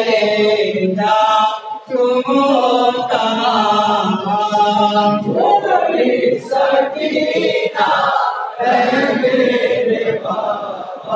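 Men chanting a noha, an unaccompanied Urdu lament, together into a microphone, with no instruments.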